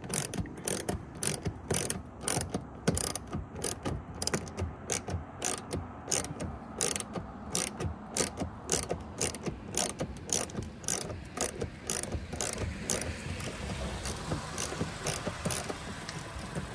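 10 mm ratcheting wrench clicking over and over, a few clicks a second, as it backs a screw out of the Model Y's rear wheel-well trim. The clicks thin out in the last few seconds.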